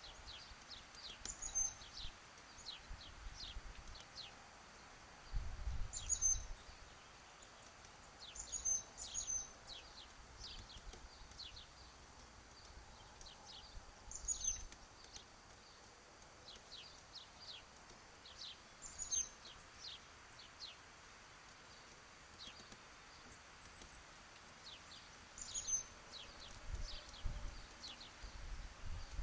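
Downy woodpecker pecking at peanuts: quick, sharp, irregular taps in clusters. Short high bird chirps come every few seconds, and a low rumble is heard briefly twice.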